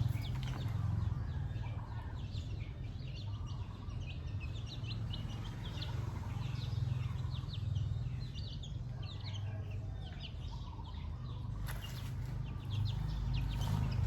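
Free-range chickens clucking and giving many short, high chirps while being fed, over a steady low rumble.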